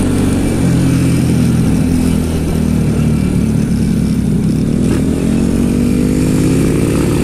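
Honda motorcycle engine running under way, heard from the rider's seat, its pitch rising gradually in the last couple of seconds as the bike speeds up.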